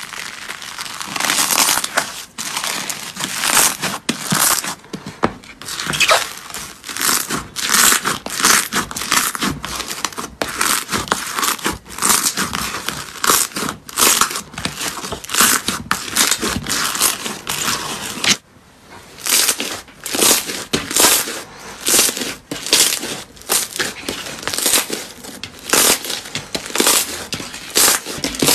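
Bubble-filled foam slime being pressed and squeezed by hand, its trapped air bubbles popping in a dense run of crackles. The crackling drops out briefly a little after 18 seconds and then resumes as the slime is kneaded.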